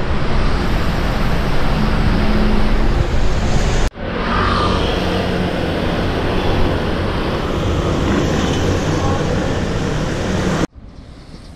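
Loud, steady rush of wind and city traffic noise on a bicycle-mounted GoPro riding along a street among cars and scooters. The rush breaks off suddenly about four seconds in, resumes at once, and drops away sharply near the end.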